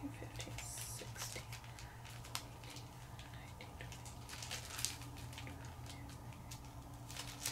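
Pokémon booster-pack wrappers crinkling and ticking as they are flipped through one by one in the hands, over a steady low hum.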